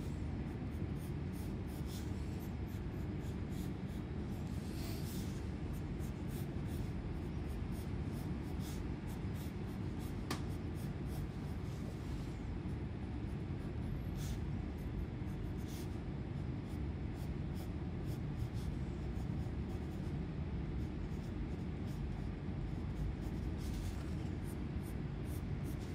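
Wooden pencil sketching on sketchbook paper: many short strokes scratching across the page, over a steady low hum.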